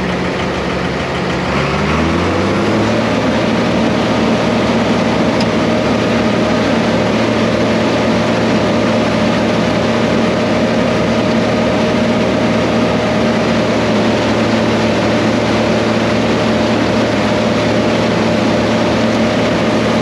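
Diesel engine of a John Deere tractor rises in speed about two seconds in, then runs steadily at high speed, driving the silo blower beside it.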